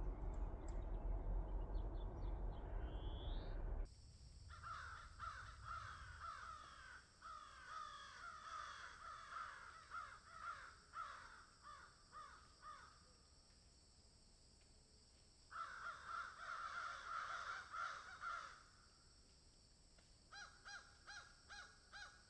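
Crows cawing in repeated runs of harsh calls, a few calls a second, in three bouts. A low rumbling noise at the start cuts off suddenly about four seconds in.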